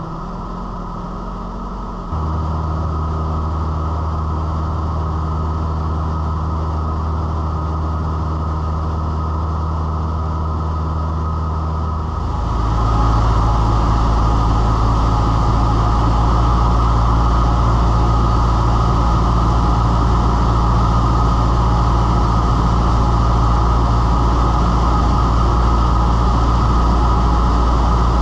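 Cessna 172's piston engine and propeller droning steadily, heard inside the cockpit in flight. The drone jumps abruptly in loudness about two seconds in, and again about twelve seconds in, where it becomes louder with more low rumble.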